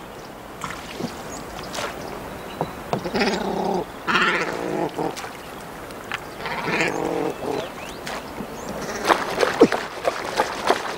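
A man calling out to his fishing cormorants with three drawn-out, bleat-like calls, followed by a few sharp knocks near the end.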